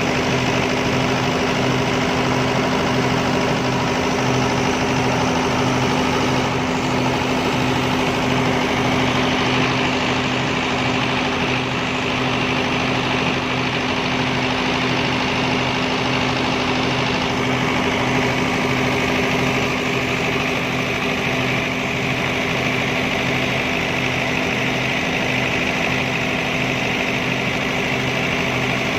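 Diesel generator set running at a steady speed: an even engine drone with a regular low beat, no change in pitch or load.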